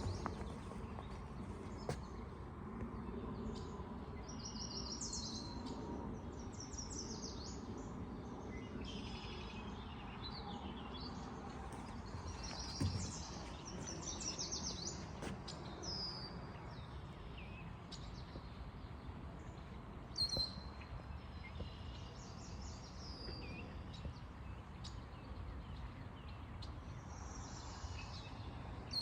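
Several small songbirds singing and chirping, with quick high trills and short repeated phrases, over a steady low outdoor rumble; a couple of brief knocks stand out about halfway through.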